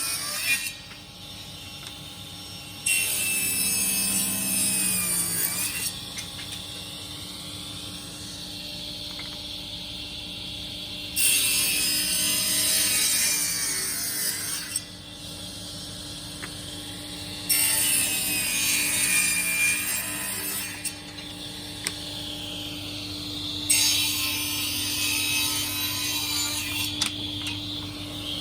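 Power saw cutting wood, five cuts of a few seconds each, with the motor humming steadily between them.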